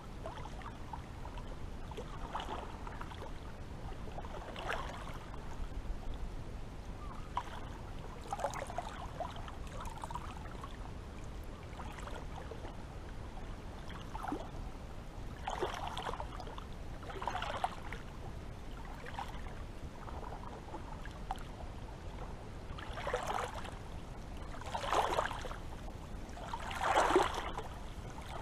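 Small waves lapping and gurgling at the shore, with irregular splashes every second or two over a low steady wash; the biggest splashes come near the end.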